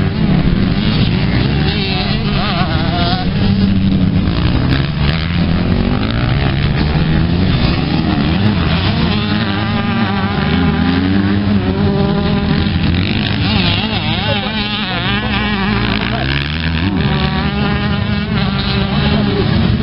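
Several motocross motorcycles racing on a dirt track. Their engines rev up and drop back again and again, so a number of rising and falling buzzy engine notes overlap.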